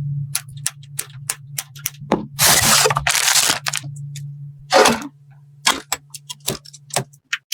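Computer parts being handled and fitted together: a quick run of sharp clicks and snaps, with two longer rustling bursts, over a steady low hum. It all stops just before the end.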